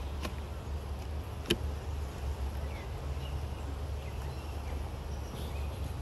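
Wooden beehive frames knocking against the hive box as they are handled and set in: a faint click just after the start and one sharp click about a second and a half in, over a steady low rumble.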